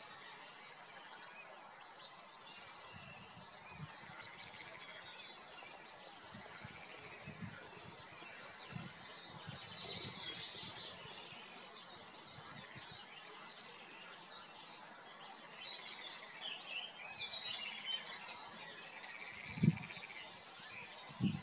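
Several small songbirds singing and chirping in the background, a busy mix of short trills and calls, busiest around the middle. A short low thump near the end.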